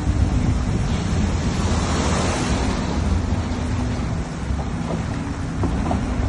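Storm surf breaking on the shore in strong wind, with wind buffeting the microphone; a wave surges in about two seconds in.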